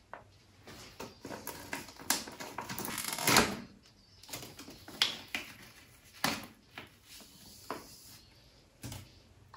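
Crinkling and rustling of a small plastic skincare packet being handled, with scattered sharp clicks and taps; the loudest rustle swells up about two to three and a half seconds in.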